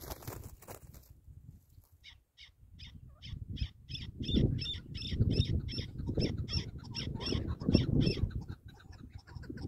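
Chukar partridge calling a long run of short repeated clucking notes, about three a second, starting about two seconds in, over a gusty low rumble of wind on the microphone.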